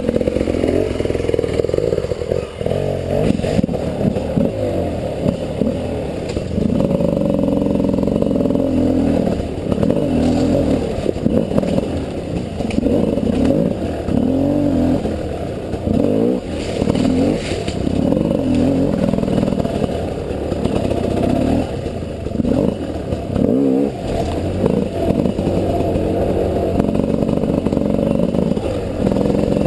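300cc two-stroke enduro motorcycle engine revving up and down over and over as the throttle is worked in short bursts, picking through slick rocks and roots, with scattered clatter and knocks from the bike.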